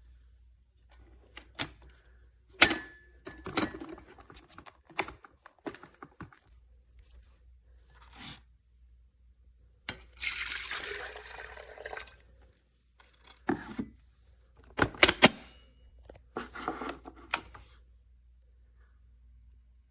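Scattered knocks and clicks of things being handled, with about two seconds of water running or pouring about ten seconds in.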